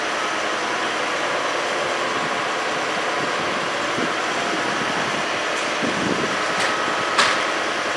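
Crane hoisting a THW work boat on a chain, its machinery running with a steady even noise, and two sharp metallic clicks near the end.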